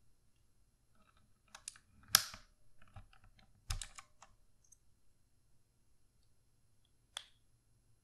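Stock keycaps being pulled off a Redragon Kumara K552 mechanical keyboard: a scatter of plastic clicks and clatters between about one and four seconds in, the loudest near two seconds, then one more sharp click about seven seconds in.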